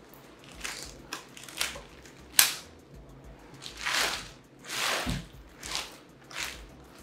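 Clear plastic bag crinkling in a run of short crackles as it is pulled and bunched out of a shipping box, with one sharp, loud crackle about two and a half seconds in.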